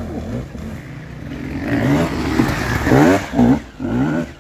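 Enduro dirt bike engine revving hard in short blips as the rider works up a muddy climb, the pitch rising and falling several times and loudest about three seconds in.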